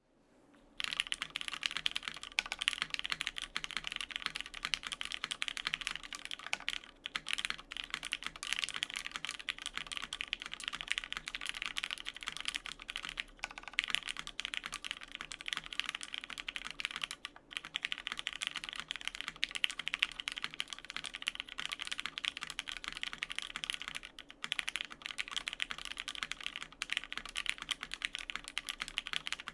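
Fast, continuous typing on a custom mechanical keyboard with lubed, filmed Cherry Hyperglide MX Black linear switches in an aluminum plate, no case foam, and CRP R6 keycaps. The keystrokes start about a second in and run as a dense stream of clacks, broken by a few brief pauses.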